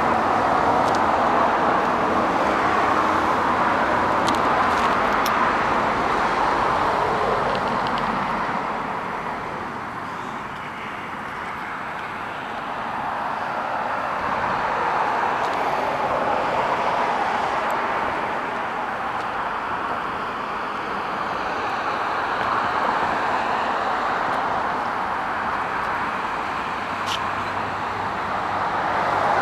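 Road traffic noise from cars passing at a distance, a steady rush that swells and fades slowly, with a few faint clicks.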